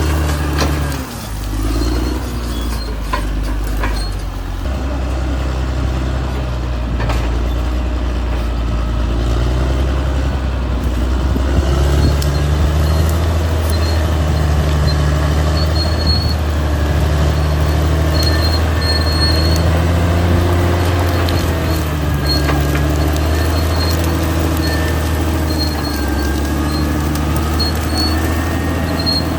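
Caterpillar D6R XL bulldozer's diesel engine running under shifting load, its pitch rising and falling as it works. Short high squeaks come now and then.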